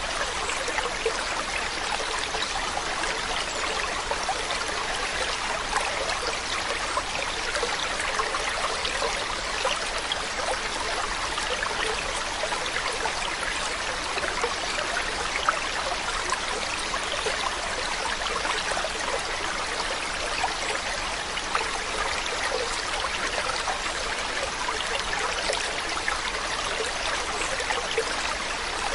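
A stream of water running over rocks, a steady babble of small splashes and trickles.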